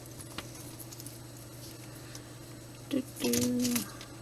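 Faint light clicks and rustles of costume jewelry being handled, over a steady low hum; about three seconds in, a woman gives a short held 'hmm'.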